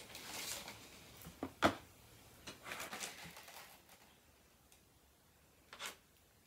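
Small sugar-bead sprinkles spilling and scattering, with rustling handling noise, a sharp tap about a second and a half in and a smaller tap near the end.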